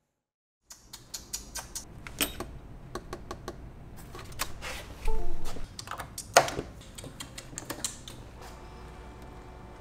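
Irregular small plastic clicks and knocks on a desk as USB flash drives are handled and plugged into a laptop, with two louder knocks about five and six and a half seconds in.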